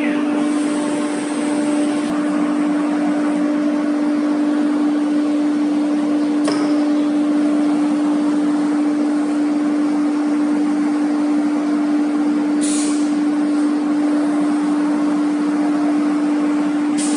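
Wood CNC router at work on a wooden door: the spindle runs at a steady, constant pitch over a hiss of cutting, with a couple of faint clicks.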